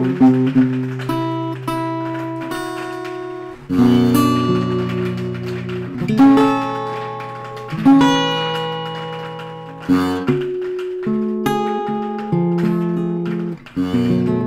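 Steel-string acoustic guitar built after Johann Stauffer's 19th-century design, with a spruce top and rosewood back and sides, played solo: chords and single notes plucked and strummed in a slow improvisation, each left to ring and fade before the next.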